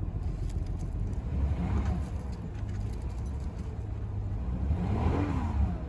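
Lexus ES 330's 3.3-litre V6 idling, with two brief revs that rise and fall in pitch, one about one and a half seconds in and one near the end.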